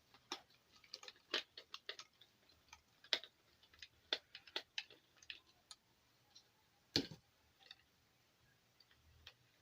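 Irregular small clicks and taps of a hand tool working at the nut that holds an IC on a keyboard's circuit board, with one sharper knock about seven seconds in.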